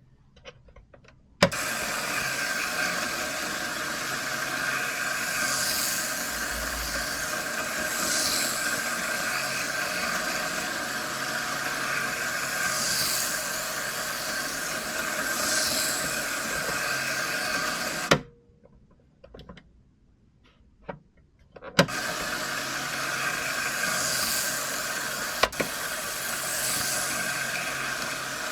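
Tiny motor of a T-gauge Hankyu 9000 model train running on its track: a steady whir that starts with a click, cuts off with a click about 18 seconds in and starts again with a click a few seconds later. A brighter hiss swells and fades about every two and a half seconds.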